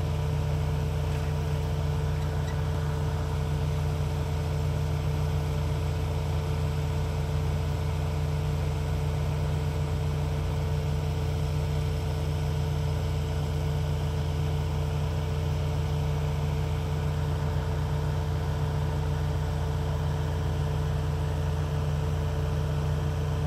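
Car engine idling in stopped traffic: a steady low hum with a constant mid-pitched tone above it, unchanging throughout.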